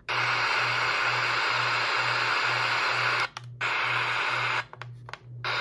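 Etón Zoneguard radio's speaker giving out a steady hiss of static between stations as it is tuned, cutting out briefly twice. Under it runs a low hum that pulses about twice a second.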